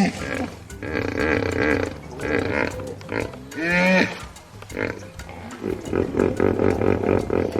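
Hippopotamus calling: a call rising in pitch at the start and another about four seconds in, then a quick rhythmic run of grunts near the end, over background music.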